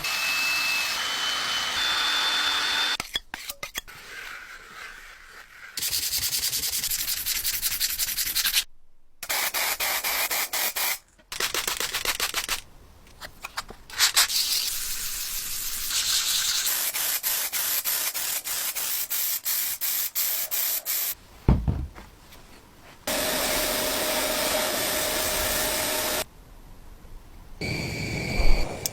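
Abrasive sanding and rubbing on the rusted parts of an antique ice cream maker, in short stretches of rapid scratching that start and stop abruptly.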